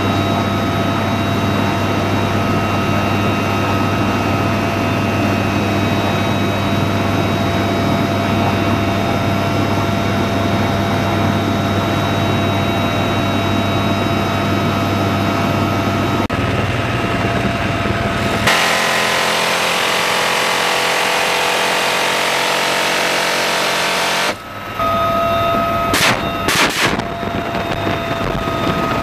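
Cabin noise inside a UH-1Y Venom helicopter: the steady drone of its twin turboshaft engines and rotor, with a high transmission whine over a low hum. About two-thirds through it turns to a broad rushing hiss for several seconds, then the drone and whine return, broken by a few sharp cracks near the end.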